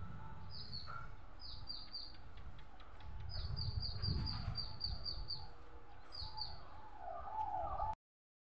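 A small bird calling: quick, high chirps that each slide downward, in short runs of two or three and one longer run of about nine, over a steady low rumble. Near the end there is a wavering lower-pitched call.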